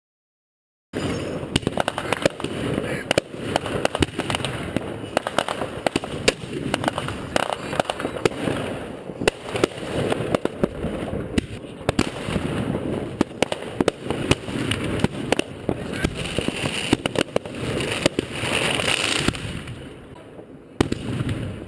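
New Year's Eve fireworks and firecrackers going off all around, a dense stream of sharp bangs and crackling, starting abruptly about a second in.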